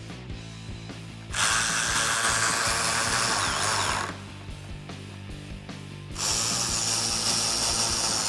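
Power driver spinning in 7mm screws, two runs of about two and a half seconds each, the second starting about six seconds in, over background music.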